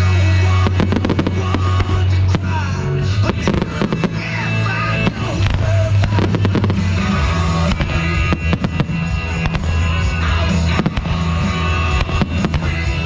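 Fireworks bursting and crackling in rapid succession over loud music with a heavy bass line.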